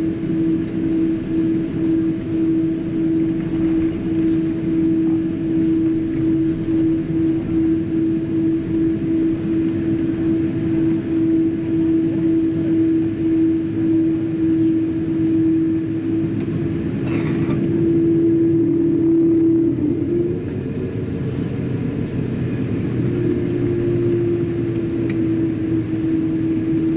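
Cabin noise of a Boeing 777-200ER taxiing after landing: a steady drone over a low rumble from the idling jet engines and the cabin air. About twenty seconds in the drone swells briefly and shifts slightly in pitch, then settles again.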